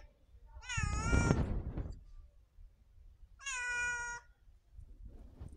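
Two cat meows, the first wavering in pitch over a low rumble, the second a shorter, steady call about two seconds later.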